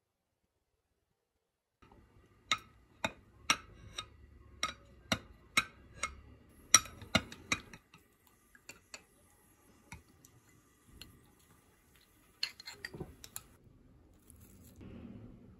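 Kitchen utensils tapping and clinking: a run of sharp taps about two a second for some five seconds, then scattered taps and a short flurry of clinks near the end.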